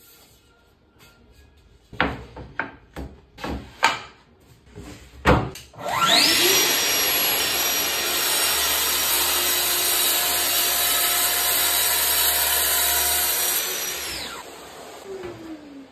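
A few sharp knocks as the guide rail and board are set, then a Festool plunge-cut track saw spins up with a rising whine about six seconds in and runs steadily through a cut along its guide rail in a laminated chipboard worktop. Near the end it winds down with a falling whine.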